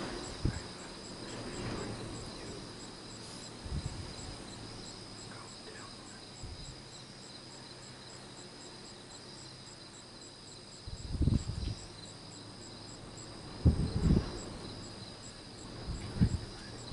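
Night insects chirping: a steady high drone with a rapid, evenly spaced high chirp over it. A few dull low knocks and rustles come and go, the loudest about two-thirds of the way through.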